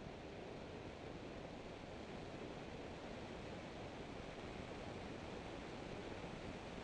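Steady rushing wind and road noise of a car at speed on a race track, an even hiss with no clear engine note.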